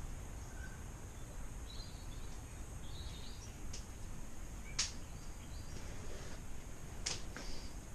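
Outdoor background noise with a few short bird chirps and several sharp, high clicks; no engine is running.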